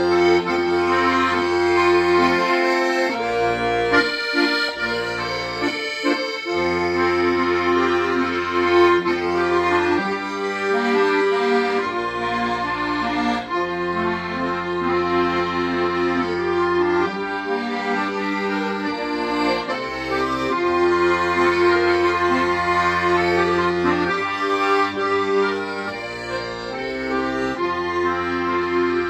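Accordion playing a slow melody in held notes over sustained bass notes, continuous throughout.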